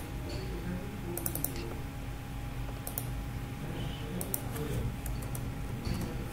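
Computer keyboard and mouse clicks: a handful of sharp key taps and clicks, including a quick run of three or four a little after a second in, over a low steady hum.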